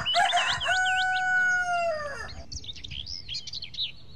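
A rooster crows once: one long held call that drops in pitch as it ends, about two seconds in. Small birds chirp throughout.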